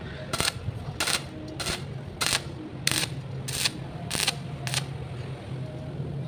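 Stick (SMAW) welding arc on thin steel tube, heard as short sharp crackles at about one or two a second over a low hum. The arc is being struck and broken repeatedly to bridge a wide gap.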